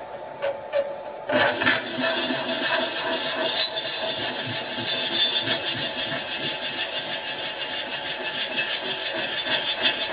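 A 12 mm twist drill, reground with its web thinned, cutting into the boiler wrapper plate on a running milling machine. The spindle hums, then about a second in the drill bites and a steady scraping, squealing cut sets in as it feeds down into the metal.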